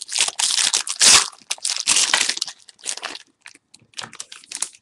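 A foil trading-card pack wrapper being torn open and crinkled by hand: dense crackling for about three seconds, then scattered lighter crinkles.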